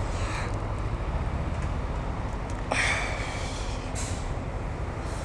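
Motorcycle engine idling steadily while stopped, with a short hiss about three seconds in.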